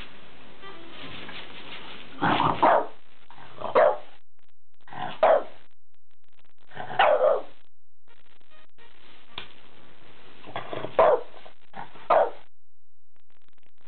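French bulldog barking in short, separate barks, some in quick pairs, every one to two seconds. It is alarmed, excited barking at an unfamiliar object, a new pull-up bar.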